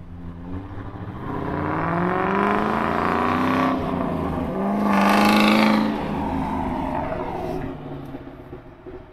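2003 Ford Mustang Mach 1's 4.6-litre V8 through a loud aftermarket exhaust (Bassani X-pipe, SLP Loudmouth mufflers), accelerating hard across the lot. The engine note climbs, breaks and drops for an upshift about four seconds in, and climbs again to its loudest about five to six seconds in. It then fades as the car pulls away.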